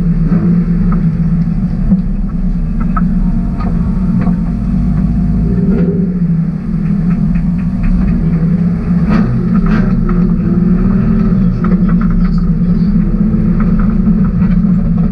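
BMW E30's M50 B28 straight-six engine idling steadily, heard from inside the stripped, roll-caged cabin, with a few light clicks over it.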